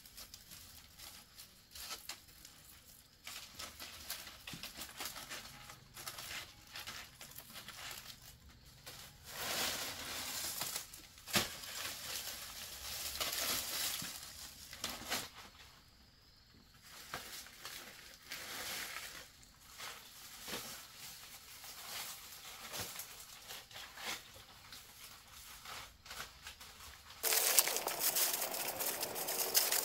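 Irregular rustling and crinkling with scattered light clicks and knocks, like dry material being handled. About 27 seconds in it changes suddenly to a louder, steadier rustling hiss.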